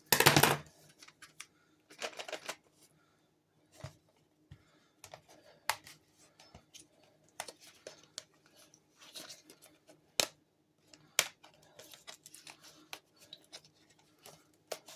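Hart heavy-duty staple gun being handled as its staple loader is worked out of the body. There is a loud clack at the start, then scattered light clicks and scrapes of metal and plastic parts, with sharper single clicks about ten and eleven seconds in.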